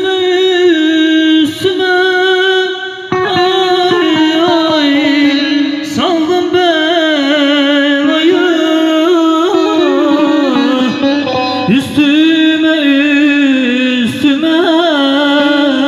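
Live Turkish folk music played loud through a PA: an ornamented, wavering melody over an electronic keyboard and a plucked long-necked string instrument.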